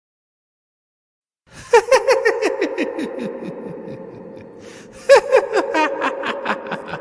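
Evil laugh sound effect, twice: a rapid run of 'ha-ha' pulses falling in pitch over a steady held tone, trailing off, then a second burst about five seconds in.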